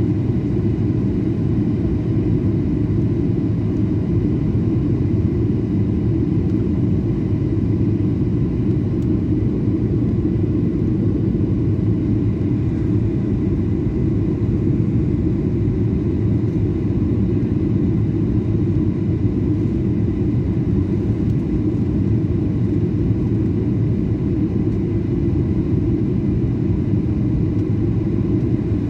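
Steady low rumble of a Boeing 737-800's CFM56 engines and airflow heard inside the passenger cabin during the descent to landing, with faint steady tones above the rumble.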